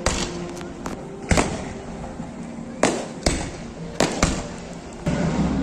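Aerial fireworks bursting: about six sharp bangs at uneven intervals, each trailing off in a short echo.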